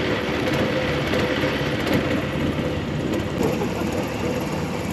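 A motorboat's engine running steadily while under way, with a constant drone.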